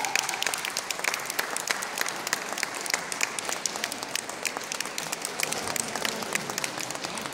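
Audience applauding: many hands clapping in a large sports hall, dense and steady throughout.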